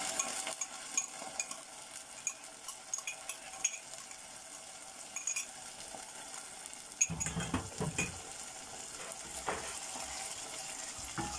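Fried onions and tomato paste sizzling gently in a pot, with light ticks of a wooden spoon scraping tomato paste out of a cup at first, then louder scraping strokes as the spoon stirs the paste into the onions from about seven seconds in.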